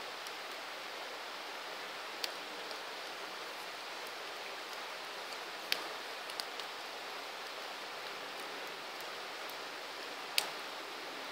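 Wood campfire burning: a steady hiss with a few sharp crackles and pops scattered through it, the loudest pop near the end.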